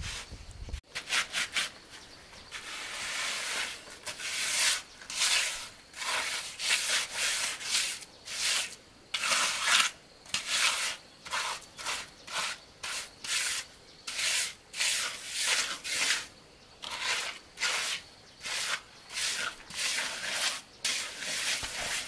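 Rhythmic rubbing or scraping strokes, about one and a half a second, as of a hand tool worked back and forth against a hard surface.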